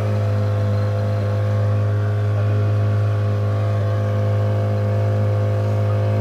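Motorboat engine running at a constant speed, a steady low drone that holds unchanged throughout.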